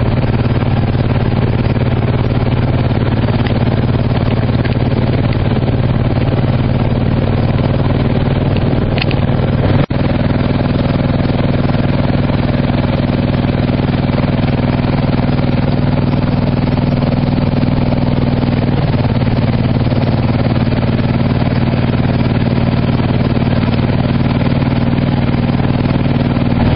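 An engine running steadily at an even speed, its note shifting slightly about nineteen seconds in, with a brief drop-out near ten seconds in.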